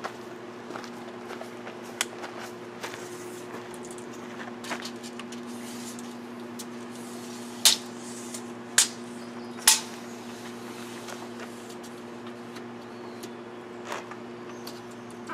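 Steel tape measure being pulled out and handled, giving sharp metallic clicks and snaps, the three loudest close together about eight to ten seconds in, with smaller ticks scattered through. A steady low hum runs underneath.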